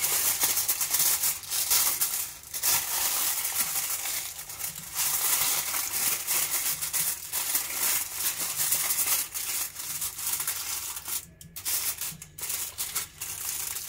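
Aluminium foil crinkling and rustling as hands press and fold it around the rim of a clay pot. It runs almost continuously, with a couple of brief pauses near the end.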